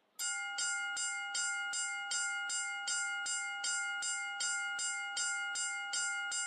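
Railroad crossing warning bell ringing in a fast, even rhythm of about two and a half strikes a second, starting abruptly just after the beginning.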